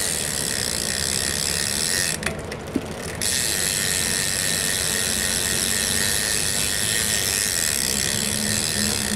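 Rear cassette hub of a Cult CC1 BMX freewheeling with rapid, even clicking as the rear wheel spins. The clicking drops out for about a second roughly two seconds in, then starts again.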